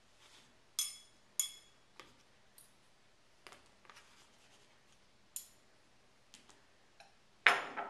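Metal knife and fork clinking and scraping against a plate: a couple of sharp ringing clinks about a second in, scattered lighter taps, and a louder clatter near the end.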